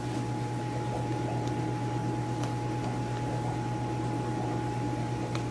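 Steady room tone of an aquarium shop: a constant low hum with a thin, steady high whine over a soft hiss, from the tanks' air pumps and filtration running.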